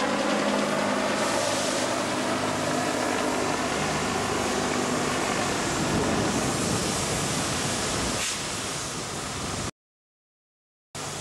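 A car engine fading as the car drives off, then a helicopter flying overhead, all under a steady rush of noise. The sound cuts out completely for about a second near the end.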